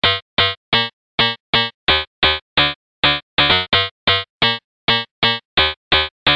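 Background music: a quick run of short, detached pitched notes, about three a second, starting suddenly out of silence.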